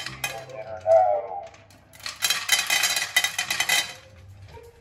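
A Boston terrier whining with high-pitched cries: a short one about a second in and a longer, rougher one in the middle.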